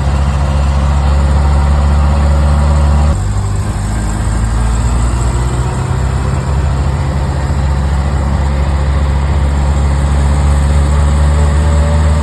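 Triumph Spitfire 1500's four-cylinder engine running at a steady idle just after a cold start with the choke held; about three seconds in it drops a little in speed and loudness and settles.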